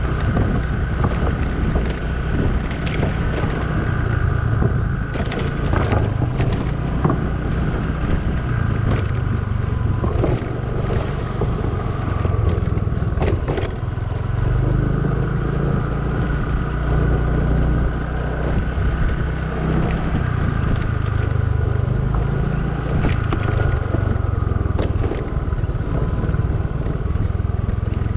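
Small motor scooter engine running steadily at low riding speed, with wind buffeting the microphone. Scattered short knocks and rattles sound over the top of it.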